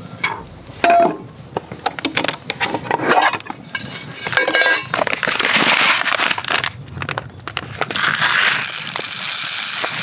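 Metal camp cookware, a Sierra cup and a mess tin, clinking and knocking on a wooden slat table, with brief metallic ringing about halfway through. Near the end a steady hiss of dry rice being poured into a metal pot.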